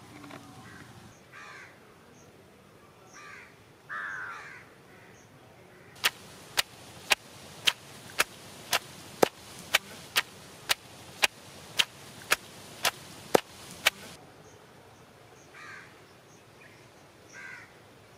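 A long stone pestle pounding in a stone mortar: about sixteen sharp, even knocks at roughly two a second, starting about a third of the way in and stopping some eight seconds later. Crows caw a few times before and after the pounding.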